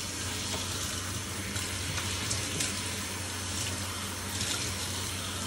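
Water running steadily from a bathtub faucet's hand-held sprayer onto a dog's wet coat.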